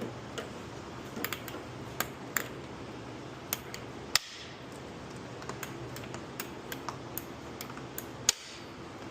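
Irregular sharp plastic clicks and snaps of car trim and its retaining clips being pried loose, the loudest about four seconds in, over a steady low hum.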